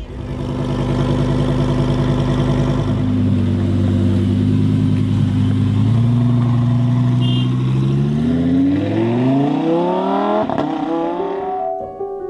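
Lamborghini supercar engine running at a steady pitch, then revving up with a rising pitch for a few seconds before it cuts off suddenly near the end.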